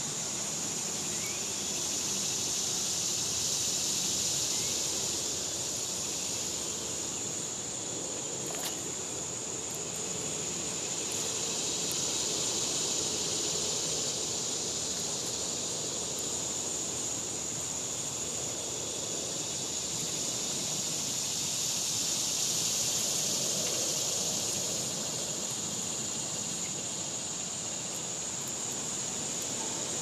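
Chorus of cicadas buzzing steadily, swelling and fading in slow waves every several seconds, over a low steady background noise.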